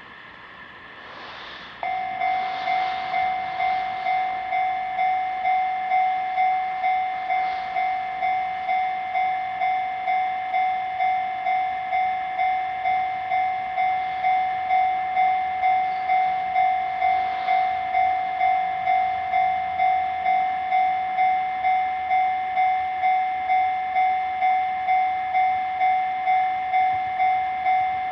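Japanese level-crossing warning alarm starting to ring about two seconds in, a steady electronic clang repeating evenly about one and a half times a second.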